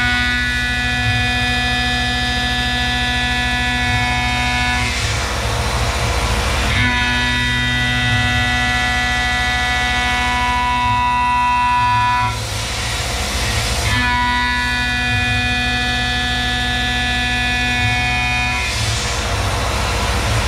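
Tormach 1100M CNC mill's spindle running with an end mill cutting aluminium: a steady, many-toned machining whine, broken about every seven seconds by a second or two of hiss.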